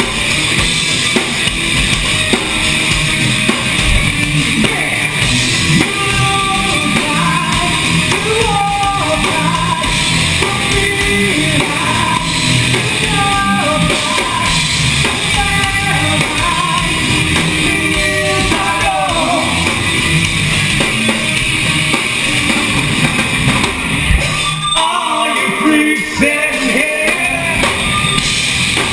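Live rock band playing loud: drums, bass and electric guitar with singing over them. About twenty-five seconds in, the drums and bass drop out for two or three seconds, then the full band comes back in.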